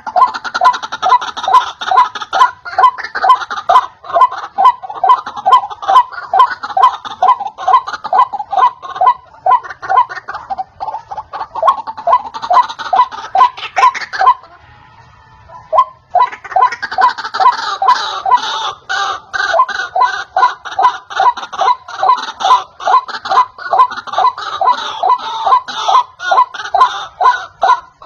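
White-breasted waterhen (ruak-ruak) calling: a fast run of repeated croaking notes, about two or three a second. The run breaks off for about two seconds about halfway through, then resumes.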